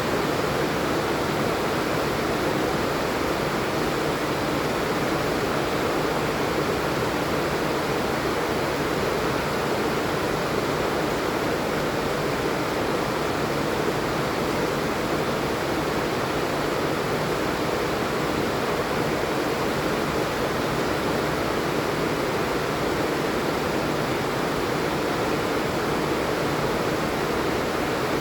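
Steady heavy rain, a constant even hiss.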